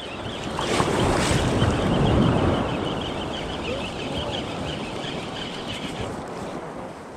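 Shallow ocean surf washing in around a wading angler, a rushing wash that builds over the first two seconds or so and then slowly dies away.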